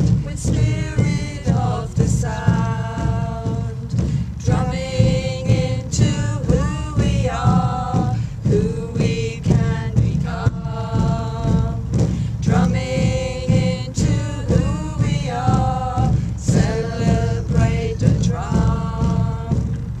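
Music of singing voices, several together, over a steady drumbeat, with sung phrases rising and falling every second or two.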